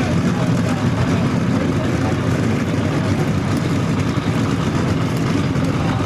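Drag-racing car engine idling at the starting line, a steady loud low rumble that holds even without revving up.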